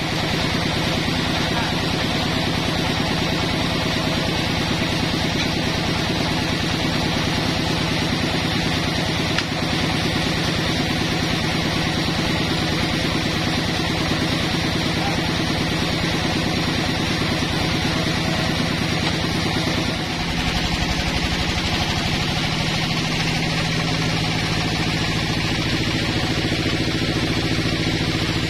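Band sawmill running steadily with a continuous machine drone as a log is sawn; about twenty seconds in, the low hum shifts in pitch.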